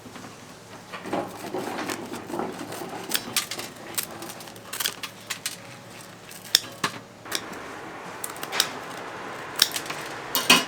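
Metal clinking and clattering as bungeoppang molds and utensils are handled: a dozen or so sharp, irregular clinks, the loudest near the end.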